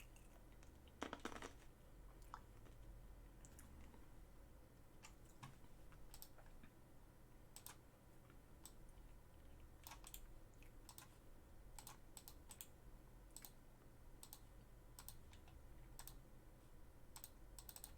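Faint, irregular clicking of computer keys, a click or two at a time with a slightly louder cluster about a second in, over near-silent room tone.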